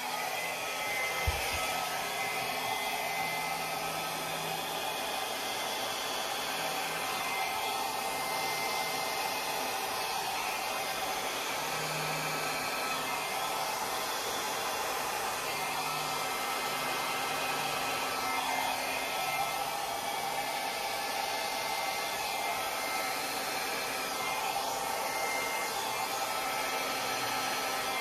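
Electric hair dryer running steadily on the canvas: a constant rush of blown air with a faint motor whine, pushing fluid acrylic paint across the surface in a Dutch pour.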